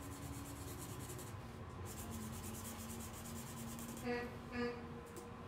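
Colouring tool scratching over paper in small, quick circular strokes as a flower petal is coloured in. Two short pitched sounds come about four seconds in.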